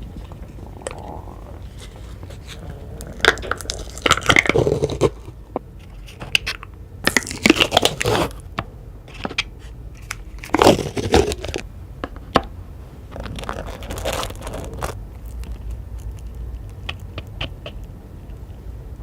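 Close-miked eating for a mukbang: crunchy bites and chewing in four bursts, with lighter crackles in between.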